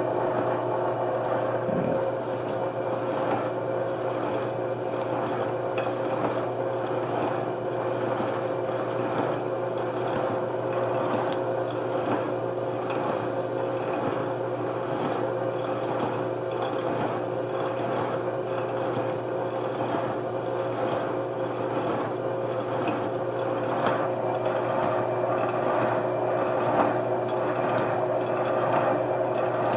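Milling machine running steadily, its slitting saw turning at 60 RPM with the coolant running; a constant hum with two steady tones.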